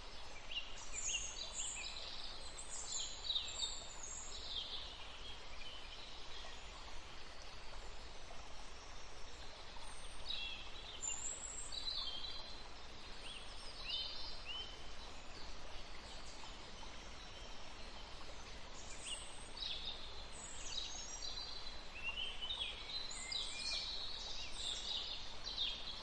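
Small birds chirping and twittering in scattered bursts over a steady background hiss.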